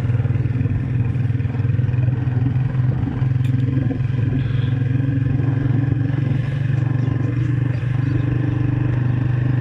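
Motorcycle engine running at a steady cruising speed while riding, an even low drone with road noise.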